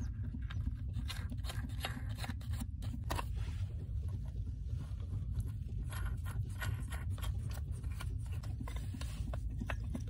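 Small metal clicks and scrapes of steel nuts being turned by hand onto the bolts of a rusty pipe flange, coming in irregular runs, over a steady low rumble.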